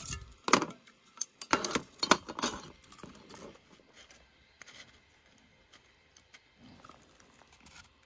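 Metal mosquito-coil holder being handled: its mesh lid and tin case clink and rattle several times in the first few seconds, then only a few faint taps.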